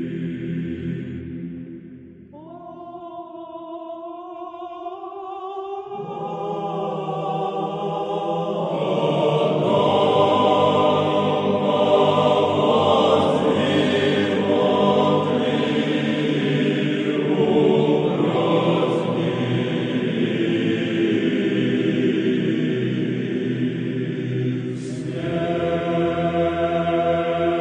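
Church choir singing a slow Orthodox-style chant. After a brief dip a single held voice begins, more voices join within a few seconds, and the full choir sings on in sustained chords.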